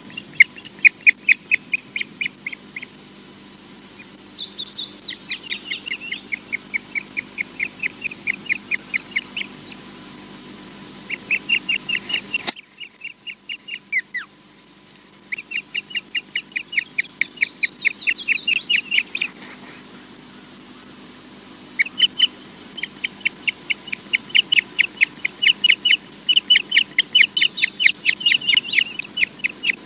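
Ospreys calling at the nest: long runs of short, high, piping whistles, about four a second, in several bouts with brief pauses, with a few higher, sliding notes mixed in.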